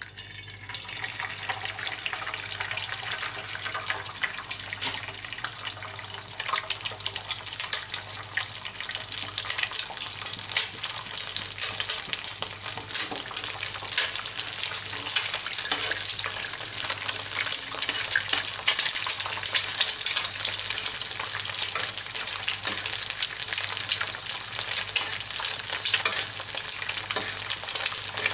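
An egg frying in hot oil in a frying pan: steady sizzling and crackling. It starts suddenly as the egg goes into the oil and grows a little louder over the first several seconds.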